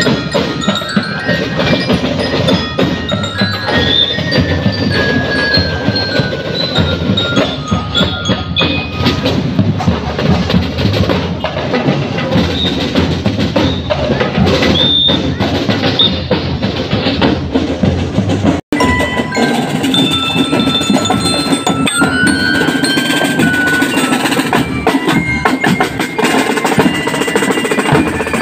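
Drum and lyre corps playing a marching tune: bell lyres ring out the melody in short bright notes over a steady beat of marching drums and cymbals. The sound cuts out for an instant about two-thirds through.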